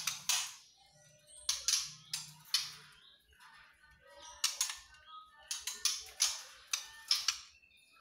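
Caged juvenile white-rumped shamas giving short harsh rasping calls, about a dozen in small irregular clusters.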